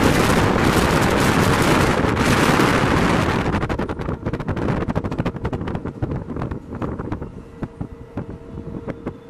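Passenger train coach running at speed, heard from an open window: wind buffeting and the rumble of wheels on rail, easing after about three and a half seconds into a quieter clatter of quick, irregular wheel clicks on the track. A faint steady tone comes in near the end.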